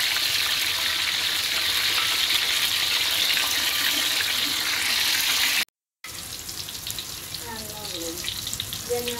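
Tempeh and tofu deep-frying in hot oil in a wok: a steady sizzle. It cuts out for a moment after about five and a half seconds, then comes back quieter, with small crackles.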